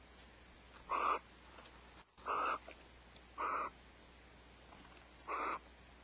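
Barn owls calling in the nest: four short, harsh hissing calls, a second or two apart.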